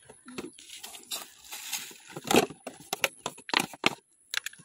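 A plastic bottle and a plastic basin being handled while flour is shaken out of the bottle into the basin: irregular taps, knocks and crinkles, with short pauses between them.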